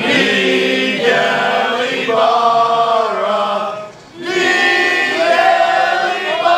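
A group of male soccer supporters singing a chant together in long held phrases, breaking briefly about four seconds in before starting again.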